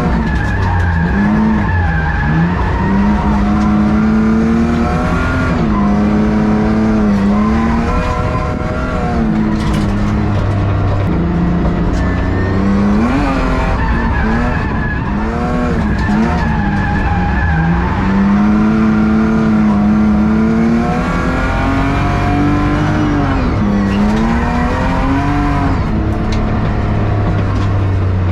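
BMW E36's engine revving up and dropping back again and again as the car is driven hard through drift laps, with tyres skidding. With only half its exhaust fitted it is really loud.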